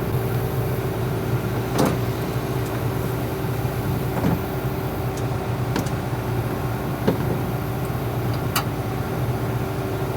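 Combine harvester's engine running steadily at idle, with a few sharp clicks scattered through.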